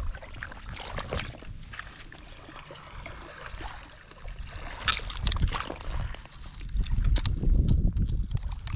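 Water trickling at the edge of a shell-covered beach at falling tide, with scattered sharp clicks and crunches of shells. A heavier low rumble builds in the second half.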